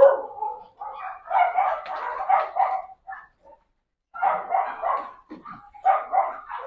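Pug puppies barking in short bursts as they play-fight, with a break of about a second midway.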